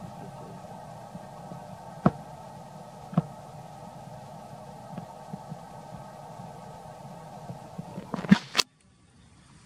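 A steady low hum with a sharp click about two seconds in and another about three seconds in. A cluster of louder clicks comes near the end, after which the sound drops out suddenly.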